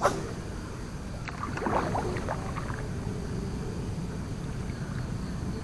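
Small paddled boat moving on a still canal: a sharp knock right at the start, then a short run of splashy, crackly sounds about a second and a half in, over a steady low rumble.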